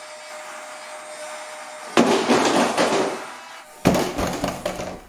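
A model jet dropped about 15 cm lands on a tabletop on its dragged-leg (trailing-link) landing gear: a sudden loud clatter about two seconds in that rattles for about a second. A second, similar impact and rattle follows just before the end, after a steady hum in the first two seconds.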